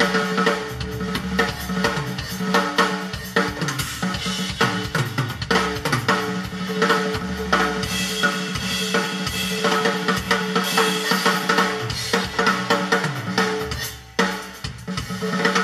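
Music with a drum-kit beat played back through a pair of Victor three-way bookshelf speakers and picked up in the room, with a brief drop in level near the end.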